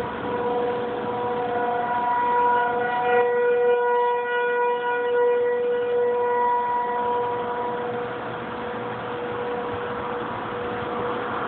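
Outdoor tornado warning sirens sounding a steady wail, fading away about eight seconds in.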